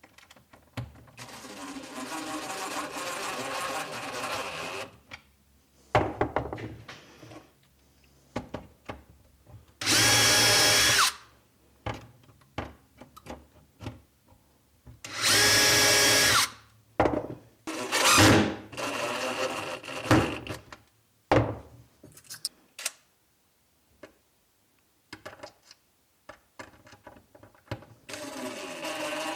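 Power drill running in several short bursts, each with a steady whine. The first run is longer and quieter; two short runs in the middle are the loudest. Clicks and knocks of parts being handled fall between the runs.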